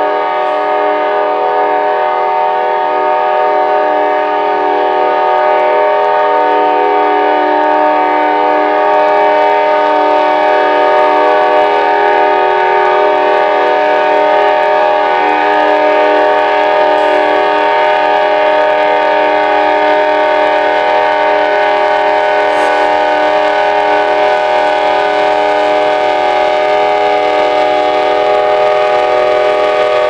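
Norfolk Southern diesel locomotive's air horn sounding a steady multi-note chord without a break, loud and unvarying: the horn that kept blaring for about three hours.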